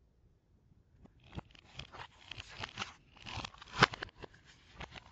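Plastic DVD case being handled, played backwards: after about a second of quiet, a run of clicks, crinkly scraping and rattles, with one sharp click a little before the end.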